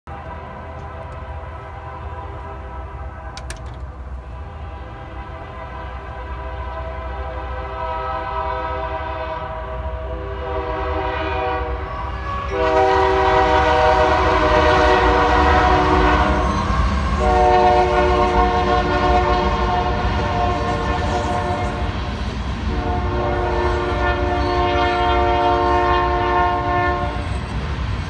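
Horn of a Union Pacific freight train's lead GE AC44CW locomotive, a chord of several tones, sounding a series of long blasts as the train approaches. It grows louder, with the loudest and longest blast from about halfway, over a low, rising rumble of the locomotives.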